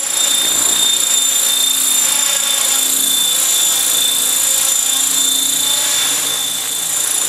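Blade 500 3D electric RC helicopter in flight: a steady high-pitched whine from its electric motor drive over the noise of the spinning rotor, cutting in suddenly at the start.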